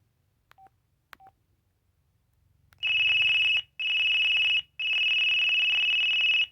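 LG VX5200 flip phone: two faint key-press beeps, then a high, steady, buzzy ringtone from its small speaker, sounding in three long pulses and cutting off suddenly.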